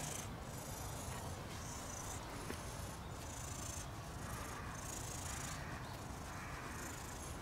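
Soft rustling of a hand stroking a cat's fur, in repeated strokes about once a second, over a steady low outdoor background noise.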